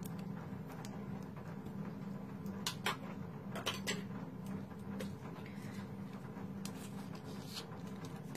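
A few light, sharp clicks and taps as a nail brush and small manicure tools are handled and put away on a tabletop, over a steady low hum.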